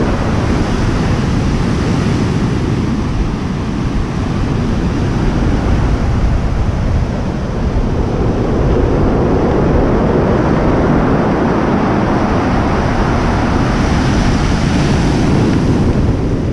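Heavy surf breaking and washing up a pebble beach in a steady, loud rush, with wind buffeting the microphone.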